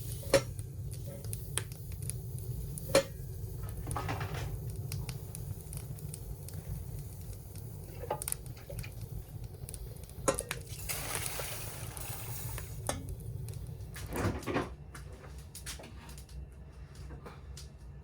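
Kitchen dishes and utensils being handled, with scattered clinks and knocks over a steady low hum, and a few seconds of hiss about eleven seconds in.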